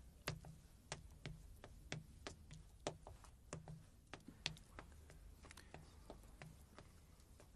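Faint footsteps of people walking on a hard floor, short irregular taps about three a second, over a low steady hum.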